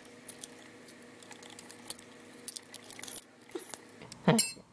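Faint, scattered clicks and light rattling of small plastic parts and a circuit board being handled as the camera's main board is worked free of its plastic inner case. A brief vocal sound comes near the end.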